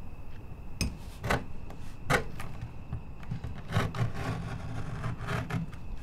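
Leather knife cutting through a sheet of leather: several short scraping strokes, irregularly spaced, some close together in the second half.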